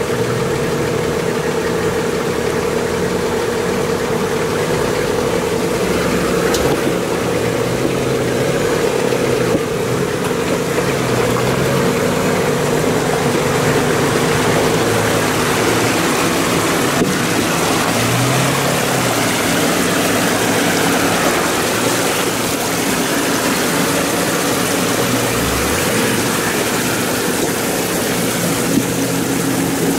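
Off-road 4x4's engine running at low revs as it crawls up a rocky stream bed, its pitch rising and falling slightly. The hiss of the rushing stream is heard with it, and near the end the tyre splashes through the water.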